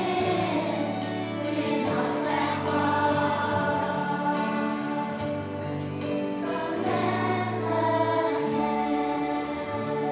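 Music: a choir singing a song over instrumental accompaniment, with held notes.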